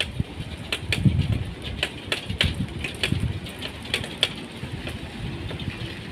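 Footsteps crunching on a sandy path, about two sharp steps a second, over an uneven low rumble and light outdoor hiss.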